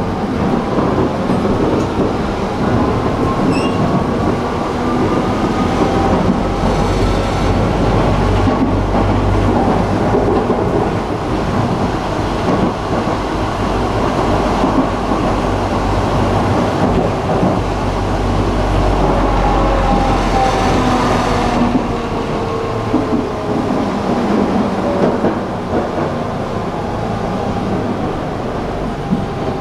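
Tram running, heard from inside the car: a steady rumble of wheels on rails with an electric motor whine. The whine rises in pitch over the first several seconds as the tram speeds up, then falls from about two-thirds of the way through as it slows, and the rumble eases near the end.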